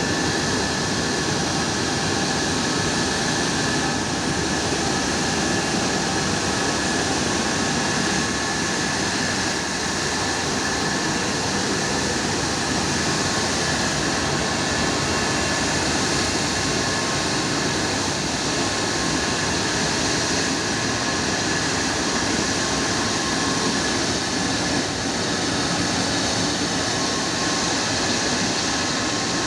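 Antonov An-124-100's four D-18T turbofan engines running steadily: a constant rushing roar with a steady high whine over it.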